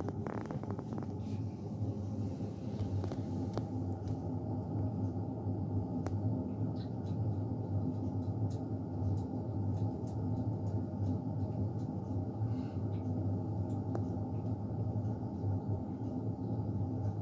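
A steady low hum, with faint irregular clicks from a kitten eating food out of a bowl.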